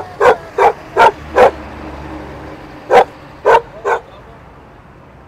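A dog barking loudly: five quick barks, a pause of about a second and a half, then three more.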